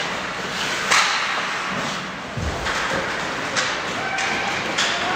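Ice hockey play in an echoing rink: sharp knocks and cracks of puck and sticks against the boards, the loudest about a second in, with a dull thud midway, over steady arena noise.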